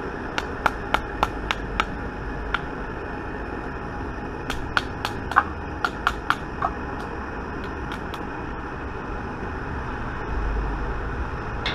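Two runs of sharp taps and clinks from bullet casting, a few a second: a wooden mallet striking the bullet mold and cast lead bullets dropping free. A steady background hiss lies under them.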